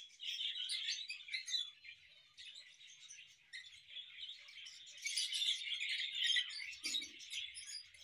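A flock of budgerigars and lovebirds in an aviary chirping and chattering continuously, many high twittering calls overlapping, thinning out briefly about two seconds in and busiest near the middle of the second half.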